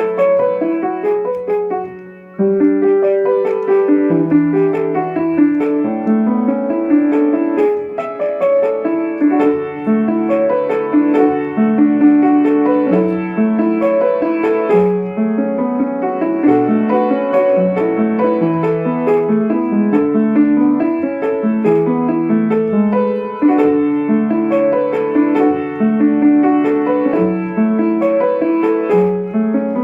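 Piano playing a song accompaniment of flowing, repeating broken-chord figures, with a brief break about two seconds in.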